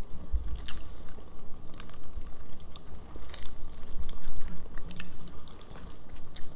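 People chewing and biting into burgers: irregular short mouth clicks and smacks with low thumps.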